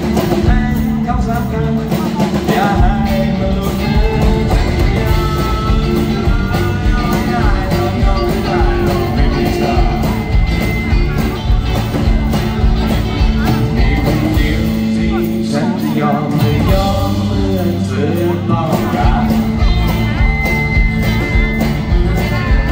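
Live rock song: a male singer sings over his strummed acoustic guitar with a backing band.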